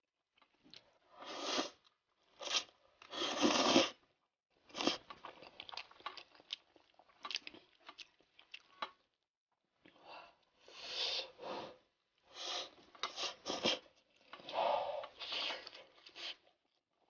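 A person chewing a mouthful of food close to the microphone, in a string of short, irregular bursts with brief pauses between them.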